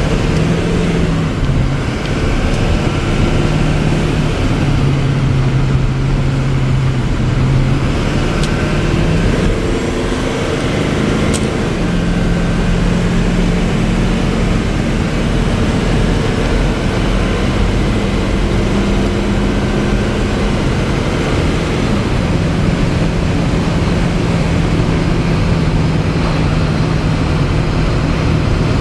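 6.6-liter Duramax V8 diesel of a 2004 Chevy C5500 truck running under way at road speed, heard from inside the cab with steady road and tyre noise. The engine note steps to a new pitch a few times.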